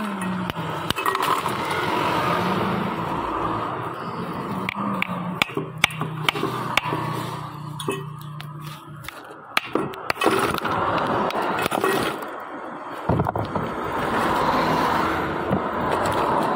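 A steel ladle clinking and scraping against a stainless steel bowl as a drink is mixed, in many sharp, irregular clinks and knocks. A low steady drone runs under the first half and stops about nine seconds in.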